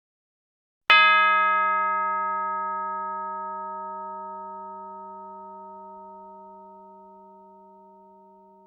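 A single metal chime struck once about a second in, then ringing out in a long, slow fade with several overtones sounding together.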